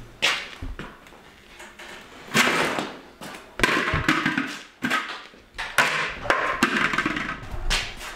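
Irregular knocks, scrapes and rustles of a plastic hard hat being pushed and shifted under a go-kart's front tyre on a concrete floor.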